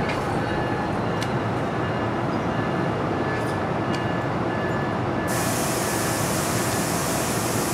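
NJ Transit Multilevel commuter train on the near track: steady rumble with a few light clicks. A hiss comes in about five seconds in and cuts off about three seconds later.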